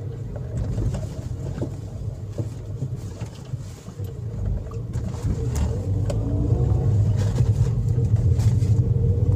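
Engine and road drone of a 2009 Toyota Vios heard inside the cabin while driving, growing louder in the second half as the car gets going. The engine pulls strongly, which the driver takes as the fix for its loss of power when hot.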